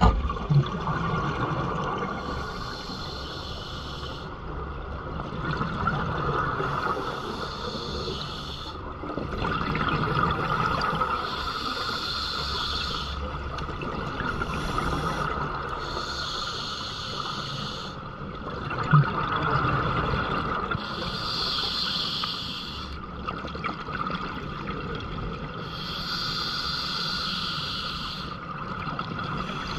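A scuba diver's regulator underwater, breathing in a slow steady cycle: a hiss on each inhalation alternating with the bubbling gurgle of exhaled air, repeating about every four to five seconds.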